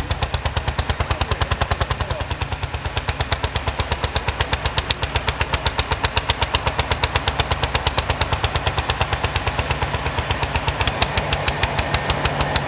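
A large John Deere tractor's diesel engine working under load while it pulls a stubble cultivator through the field, with a rapid, even clatter of about eight beats a second over the engine.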